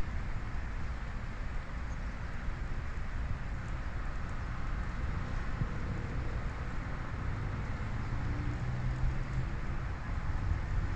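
Heavy rain falling steadily, an even hiss, with wind rumbling on the microphone. A faint low hum comes in during the second half.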